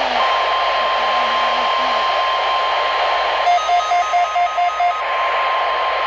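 Midland weather radio's speaker playing the steady high-pitched NOAA Weather Radio alert tone over a hiss of static. About three and a half seconds in, the radio's own beeper adds a quick string of about six beeps lasting about a second and a half.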